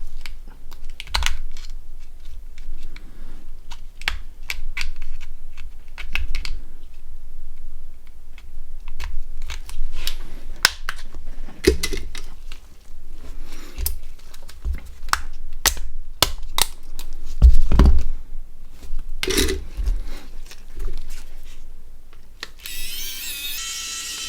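A Nokia 6680's plastic housing and small parts being pried apart and handled: irregular light clicks, taps and scrapes, with a louder knock about 17 seconds in and a harsher scraping rasp lasting a second or two near the end.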